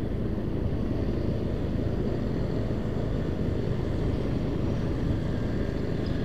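Steady low rumble of a motorcycle on the move: the running engine and road noise, with wind buffeting a handlebar-mounted camera microphone.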